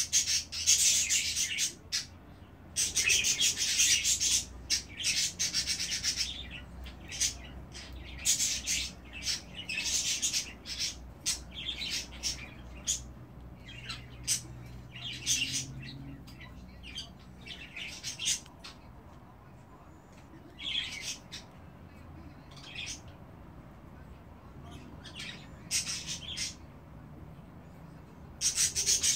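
Young budgerigars chirping and chattering in short, sharp high calls, densest in the first few seconds and thinning out later, with a burst of calls near the end.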